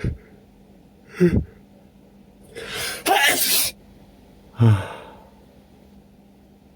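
A person's sneeze build-up: two short voiced gasps, then a drawn-in breath about two and a half seconds in that breaks into one loud sneeze about three seconds in. A short voiced breath follows near five seconds.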